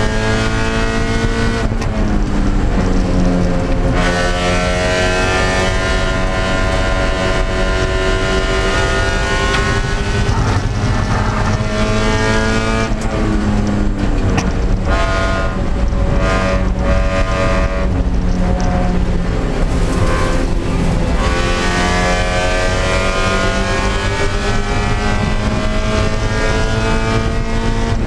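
Spec Miata's Mazda MX-5 four-cylinder engine at racing revs, heard from inside the stripped cabin: the pitch climbs in each gear and breaks off at several gear changes, dropping back under braking before climbing again.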